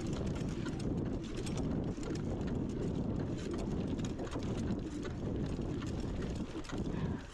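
Mountain bike ridden over a bumpy dirt singletrack: a steady low rush of wind and tyre rumble on the microphone, with frequent small clicks and rattles from the bike jolting over the ground.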